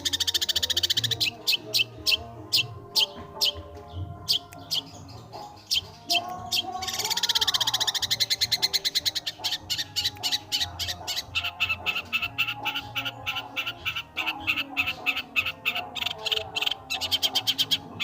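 Long-tailed shrike singing a loud, fast song: dense chattering trills alternating with runs of sharp, repeated high notes, several a second.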